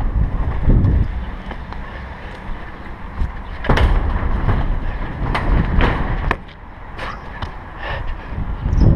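A parkour runner's footfalls and wind rush on a body-worn camera's microphone, then his hands and shoes striking and scrambling over a corrugated metal roof sheet: a string of sharp metallic bangs from about four to six and a half seconds in.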